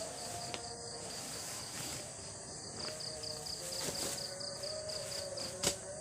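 Insects chirping in a steady, rapidly pulsing high trill at dusk in mountain forest. A few small clicks are heard, with one sharp knock near the end.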